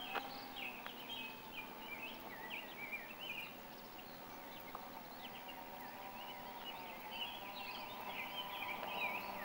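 Faint, steady whine of a radio-controlled ICON A5 model seaplane's motor as it flies over and comes in low to land, with birds chirping throughout.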